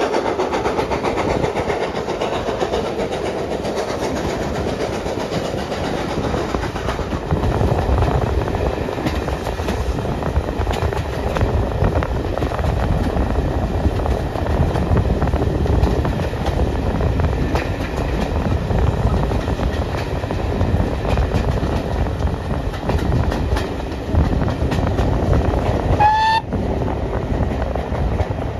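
Heard from an open carriage window, a passenger train runs along steadily: a rumble of wheels with wind, and wheels clicking over rail joints. Near the end the locomotive's whistle sounds briefly, rising slightly in pitch.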